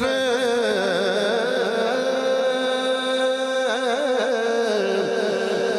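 A man singing one long drawn-out phrase of an Urdu devotional salam, his voice wavering in pitch as he holds the notes.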